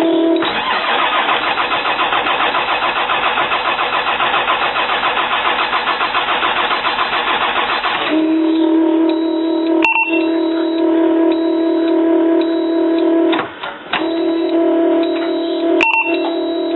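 A 2005 CAT C7 ACERT turbo diesel is cranked on its starter for about seven and a half seconds, turning over in a fast, even rhythm without firing: a no-start that the owner puts down to a bad engine computer. A steady humming tone sounds before and after the cranking, with two short clicks and beeps later on.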